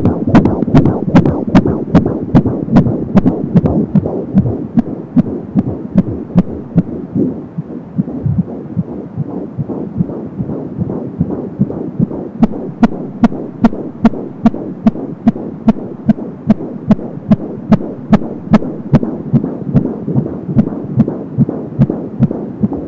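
Fetal heartbeat picked up by an Angel Sounds handheld fetal Doppler at 17 weeks of pregnancy: a fast, regular beat of about 170 a minute over a steady hiss. The beats grow faint and blurred for several seconds in the middle, then come back sharp.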